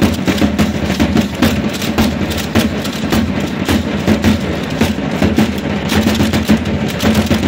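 Matachines dance in progress: a quick, steady rhythm of sharp beats from drum, hand rattles and stamping dance steps, over a steady low hum.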